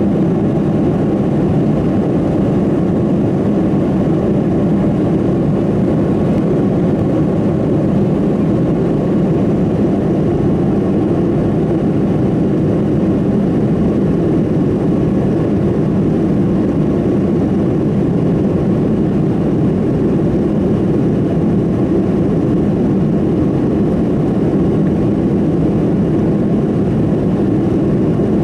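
Steady cabin noise of an airliner in flight, heard from a window seat over the wing: a constant low, even rush of engine and airflow noise with no change in level.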